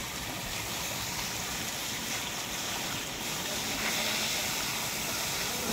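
Water jetting from a hose and splashing onto a pickup truck's metal poultry cage and body: a steady rushing spray.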